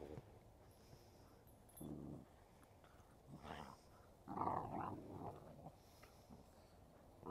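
Dogs play-growling as they wrestle: several short bouts of growls, the longest and loudest about four seconds in.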